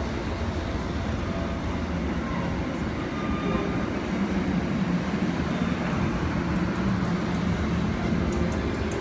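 Amtrak stainless-steel passenger coaches rolling past at departure speed: a steady rumble of steel wheels on the rails that grows a little louder partway through, with faint sharp ticks near the end.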